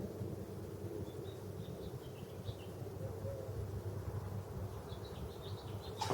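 Car engine idling with a steady low rumble, with faint short high chirps over it twice and a sharp click right at the end.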